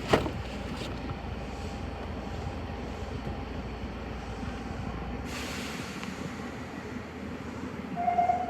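Nagoya Municipal Subway Higashiyama Line 5050-series train heard from the front: a steady running rumble with a sharp knock at the start. About five seconds in there is a short hiss and the deep rumble falls away. A steady tone sounds near the end.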